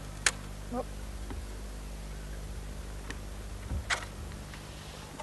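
Two sharp knocks about three and a half seconds apart, over a steady low hum.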